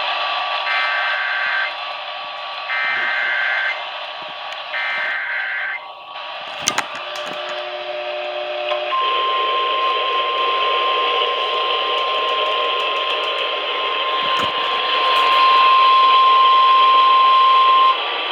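Emergency Alert System activation heard over a weather-radio receiver, with steady static hiss behind it. First come three short bursts of SAME header data tones, each about a second long with a second's pause between them. A few seconds later the single steady warning alarm tone, about 1050 Hz, sounds for about nine seconds and cuts off.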